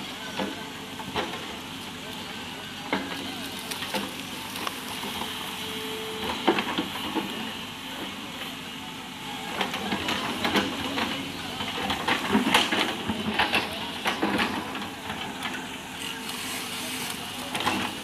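Crawler excavator working soil: its engine running under the crackle and clatter of the bucket pushing and scraping earth and stones, with a run of louder knocks from about ten to fifteen seconds in.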